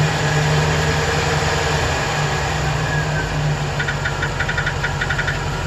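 Chevrolet Express 2500's 4.8-litre V8 idling, its note dropping about two seconds in, with a rapid light ticking that comes in near the end. The tick shows at idle and goes away at higher revs; the owner first took it for a collapsed lifter on cylinder 8 but is no longer sure.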